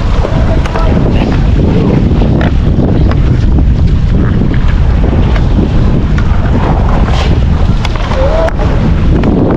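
Heavy wind buffeting the microphone on a boat at sea, a loud steady rumble.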